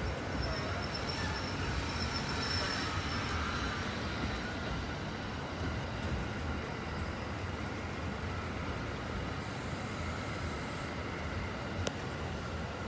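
JR East Cassiopeia sleeper train's E26 series passenger cars rolling past on an elevated line, a steady rumble of wheels on rail, with road traffic beneath it. A single sharp click comes near the end.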